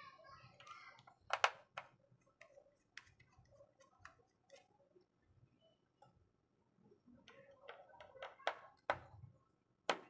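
Small repair tools clicking and tapping on a phone as its screws are taken out: scattered sharp clicks with quiet gaps between, the loudest about a second and a half in.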